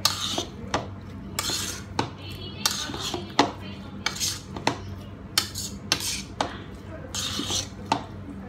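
Raw meatball mixture of ground beef and pork being mixed by hand in a plastic bowl, with irregular sharp clicks and knocks about one or two a second and short hissy smears between them.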